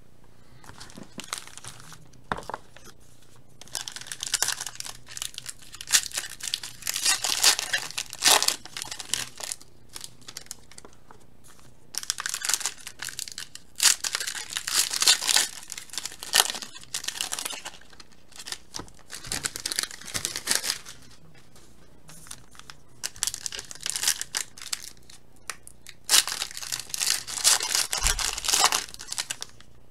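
Foil trading-card pack wrappers being torn open and crinkled, in several bursts of rustling with quieter gaps between.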